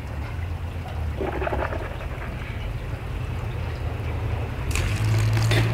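A steady low hum, with a short rush of noise near the end.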